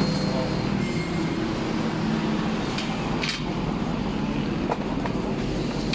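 Cardboard box being opened and handled, with a brief papery scrape about three seconds in, over a steady low mechanical rumble.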